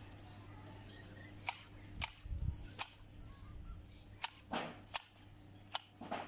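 Long-handled hedge shears snipping branches of a bush: about six sharp clicks of the blades closing, irregularly spaced.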